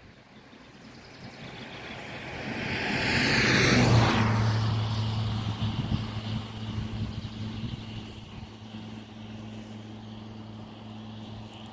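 A motor vehicle passing close by. Its noise swells to a peak about four seconds in and falls away, leaving a steady low engine hum.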